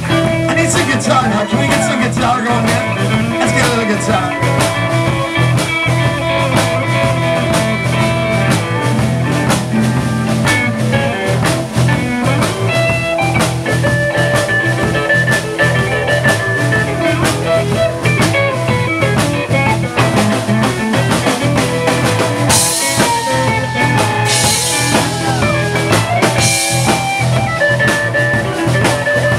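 Live rock band playing with drums, electric bass, guitar and saxophone, in a bluesy instrumental stretch with long held lead notes over a steady drum beat.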